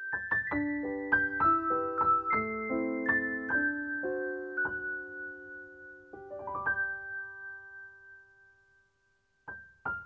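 Solo piano background music: a gentle melody of single struck notes that dies away almost to silence near the end, then a new phrase starts.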